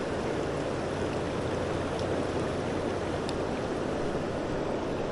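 Fast current of a creek running high, rushing steadily.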